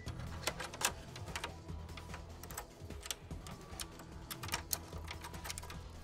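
Irregular sharp clicks and taps of a PCIe card's metal bracket and screws being fitted and fastened into a Mac Pro tower's expansion slot.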